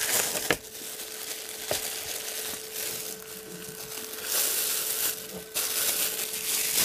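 A plastic glove crinkling and rustling in bursts, with a couple of sharp clicks as the clear plastic dome lid of an egg incubator is set back in place near the start. A steady hum from the running incubator sits underneath.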